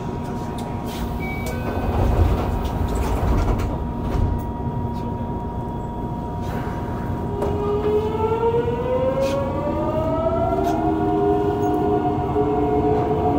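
Mitsubishi GTO-VVVF traction inverter of a 3000A subway car as the train pulls away. A steady hum and a few low thumps come first. About seven seconds in, the motors start to whine: a stack of tones rises in pitch as the train accelerates, then shifts to steadier, higher tones near the end.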